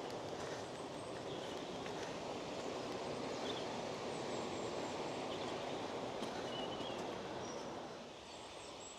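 Steady rushing of water from the Aira Force falls and beck, with a few faint bird chirps; it drops a little near the end.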